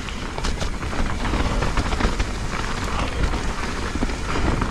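Mountain bike riding down a wet, muddy trail: a steady rush of tyre and trail noise with frequent sharp clicks and knocks as the bike rattles over the rough ground.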